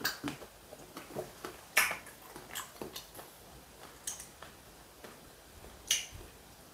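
A few scattered light clicks and taps as chopsticks are laid on a plastic plate and a drinking glass is picked up, with soft chewing sounds between. The sharpest click comes just under two seconds in, and another about six seconds in as the glass reaches the mouth.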